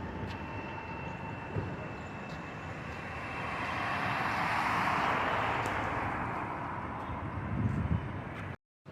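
Outdoor background noise with a vehicle passing, swelling and then fading over a few seconds; the sound cuts out briefly near the end.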